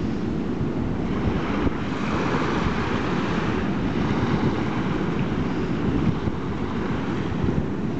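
Wind buffeting the microphone in a steady low rumble, over the hiss and wash of small waves on a shallow lagoon.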